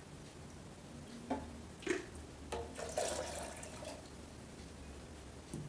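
Water poured from a glass measuring cup into a blender jar of soaked almonds, splashing for about a second and a half, after a couple of light knocks.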